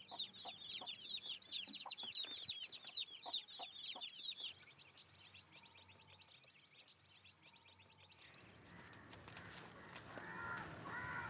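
Baby chicks peeping: a dense run of quick, high, falling cheeps for about four and a half seconds, then fainter and sparser.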